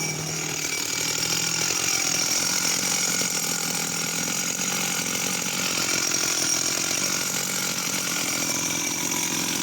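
Sachs Dolmar 111 52cc two-stroke chainsaw running steadily at high revs.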